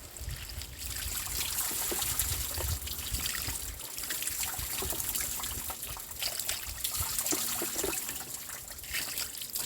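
Running water trickling and splashing as a dish sponge is rinsed, with small clicks and knocks of handling.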